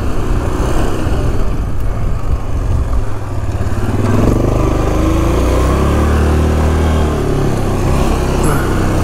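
2008 Yamaha Grizzly 450 ATV's single-cylinder four-stroke engine running under way, rising in pitch about four seconds in as it speeds up, then holding steady.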